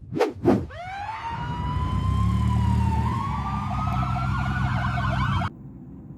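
Intro sound effect: two quick whooshes, then a siren-like wail that slowly rises and wavers over a steady low hum, cutting off abruptly near the end.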